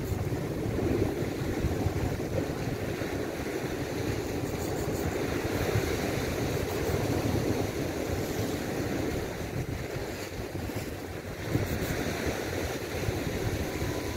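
Wind buffeting the microphone over the steady wash of sea surf against rocks.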